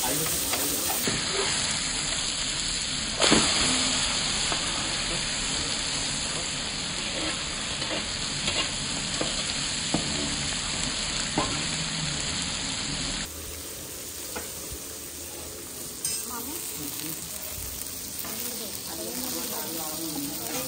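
Fish shallow-frying in hot oil in a pan, a steady sizzle, with scrapes and clinks of a metal spatula against the pan and a sharp knock about three seconds in. About thirteen seconds in, the sizzle drops quieter as rawa-coated fish slices fry on a flat iron tawa.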